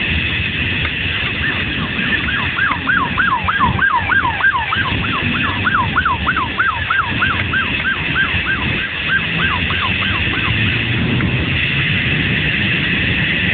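Police siren yelping rapidly, about three or four sweeps a second, starting about two seconds in and stopping a few seconds before the end, over a steady low rumble.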